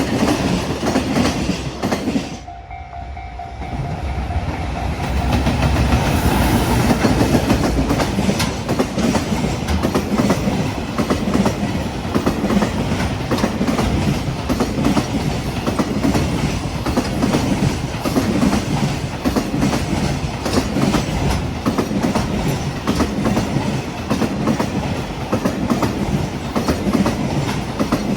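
Freight train rolling past, a continuous rumble with rapid clickety-clack of the wagons' wheels over rail joints. It eases off briefly about two to four seconds in, then runs steady again.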